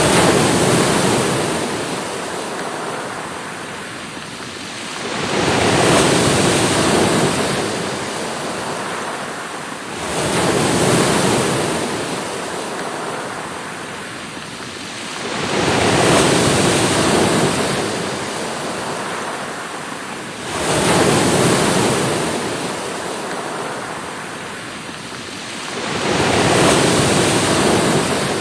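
Sea waves breaking and washing back, one after another: six surges about five seconds apart, each rising quickly and then fading into a steady wash.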